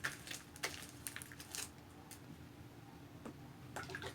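Faint wet clicks and squelches of sticky, not yet fully activated glue slime being handled, bunched in the first second and a half and then a few single clicks.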